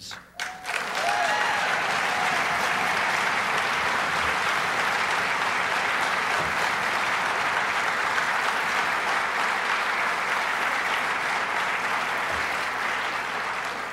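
Large seated audience applauding: sustained clapping that starts about half a second in, holds steady, and eases slightly near the end.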